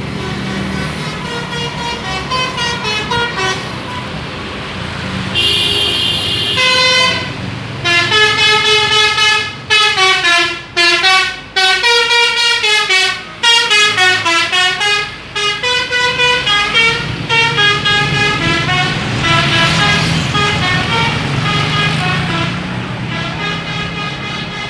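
Bus 'telolet' multi-tone horn playing quick runs of notes, stepping and sliding up and down in pitch, loudest through the middle. A low steady engine hum runs underneath.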